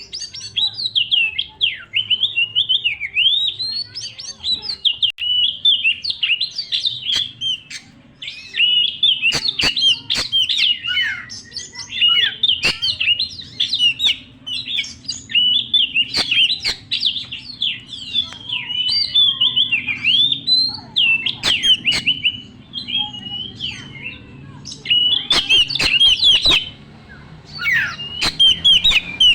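Oriental magpie-robin (kacer) singing a fast, continuous, varied song of whistles and chirps full of mimicked phrases, with a few sharp clicks mixed in. The song breaks off briefly near the end, then starts again.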